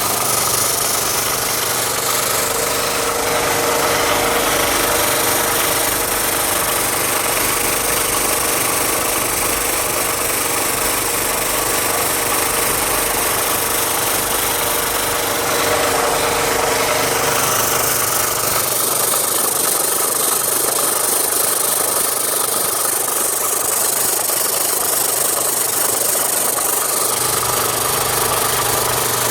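Automatic electric sanding machine running steadily with a motor hum and a held mid tone. About two-thirds of the way in the low hum drops out for several seconds while a higher hissing grows, then the hum comes back.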